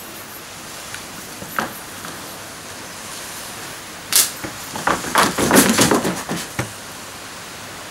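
Performers moving about a wooden stage deck: footsteps and knocks, with one sharp knock about four seconds in and a cluster of knocks and clicks from about five to six and a half seconds in, over a steady background hiss.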